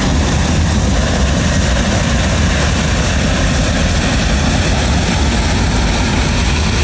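Hot-air balloon's propane burner firing in one long, steady, loud blast, heating the air in the envelope.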